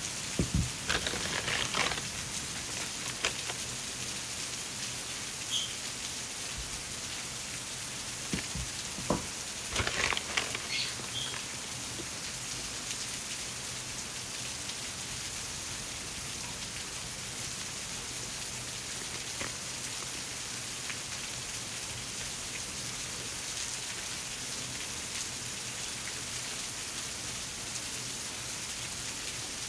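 Paper and plastic packaging crinkling as stationery is unwrapped and handled, with clusters of crackles near the start and again around ten seconds in, over a steady hiss.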